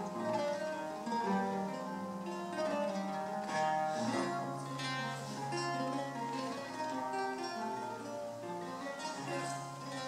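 Solo eight-course Renaissance lute by Joel van Lennep, played finger-style: a plucked melody over bass notes and chords, with the notes ringing on and decaying.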